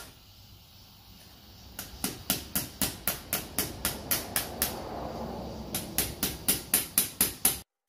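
A hand tool clicking against metal in a quick, even rhythm, about four sharp clicks a second, with a pause of about a second in the middle, as a fastener on a PVC pipe end is worked. The clicking stops abruptly near the end.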